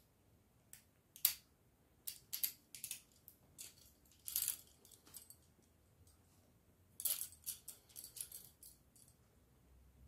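Steel Chubb Detainer IK70 handcuffs clicking and clinking as a bypass tool works the lock and the cuff is opened: a string of sharp metallic clicks, the sharpest about a second in, a short rattle about four seconds in, and a quick run of clinks and chain rattle about seven seconds in.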